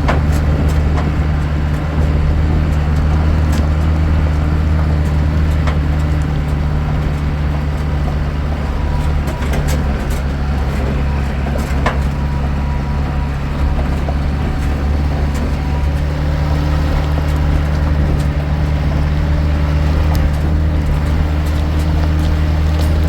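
A vehicle engine running at a steady speed, a constant low drone.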